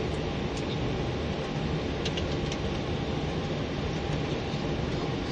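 Steady cockpit rumble of an Airbus airliner rolling on its landing gear after touchdown, engines at idle, as it slows and turns off the runway. A few faint light clicks about two seconds in.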